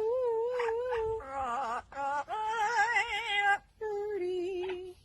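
A voice singing a slow melody of long held notes with vibrato, stepping between pitches and ending on a lower note.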